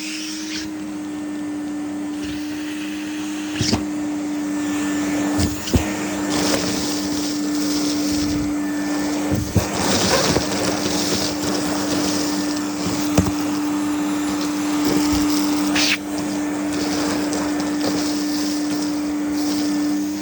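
Hoover Aquamaster vacuum cleaner running steadily with a constant motor hum and airflow noise, broken by a few short knocks and clicks.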